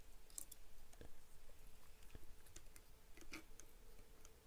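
Faint, scattered small clicks and rustles of jumper wires being handled and pushed onto the header pins of an Arduino Uno and a motor driver board.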